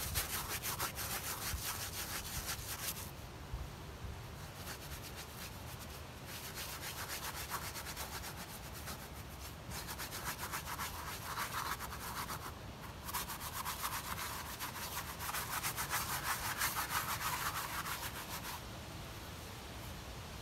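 Flat brush scrubbing varnish back and forth over the heavily textured impasto surface of an oil painting. The rapid strokes come in several bouts with short pauses and stop near the end.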